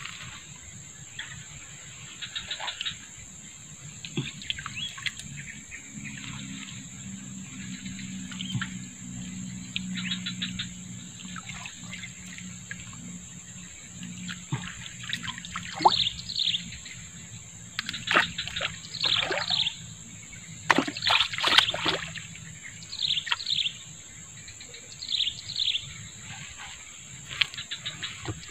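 Shallow swamp water sloshing and trickling as hands pull tangled reeds out of it to free a snagged fishing line. Birds chirp in short falling calls, often in pairs, mostly in the second half.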